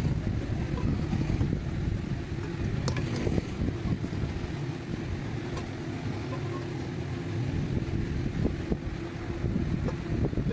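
A few light clinks of a metal serving spoon against a cooking pot and a glass bowl as boiled chicken pieces are lifted out, over a steady low rumble.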